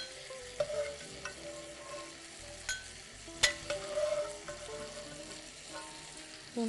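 Quiet hiss of pans simmering on the stove, with a few sharp clinks as a metal strainer scoops cooked penne out of a pot of pasta water and drops it into a glass bowl. The loudest clink comes about three and a half seconds in.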